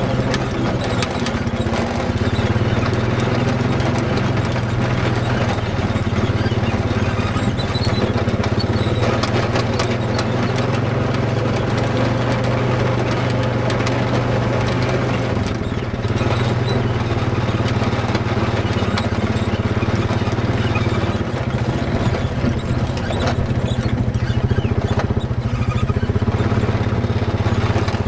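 ATV engine running steadily under way, with a brief easing off about halfway through.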